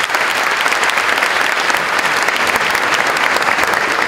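Audience applauding steadily in a hall: many people clapping at the end of a speech.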